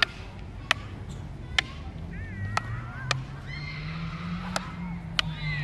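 Arnis fighting sticks clacking sharply in double-stick sparring, about seven hard strikes at uneven intervals.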